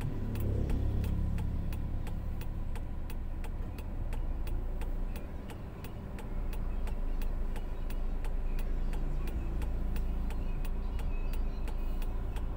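Steady low rumble of a car heard from inside the cabin, with an even, rapid ticking running through it, several ticks a second.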